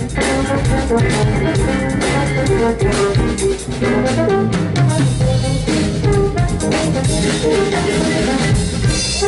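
Live jazz band playing: drum kit prominent, with electric bass, keyboard, electric guitar and trombone.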